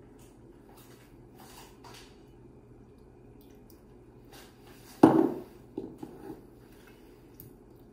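Olive oil poured quietly from a glass cruet over steaks in a stainless steel bowl, then a sharp knock about five seconds in as the glass cruet is set down on the table, followed by two lighter knocks.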